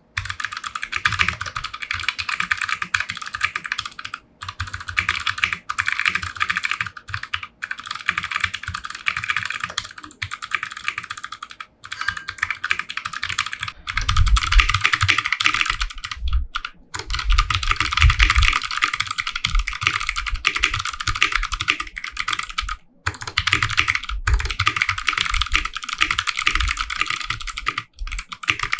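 Fast, continuous typing on a custom 60% mechanical keyboard with clicky Kailh Box White switches on a brass plate and JTK Coca-Cola keycaps: a dense patter of crisp clicks broken by a few short pauses, with heavier low knocks joining in from about halfway.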